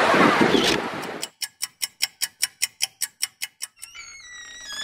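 Wind and surf noise for about a second, then a clock-like ticking sound effect over an otherwise silent background: about five crisp ticks a second for about two and a half seconds. A short run of falling tones follows near the end.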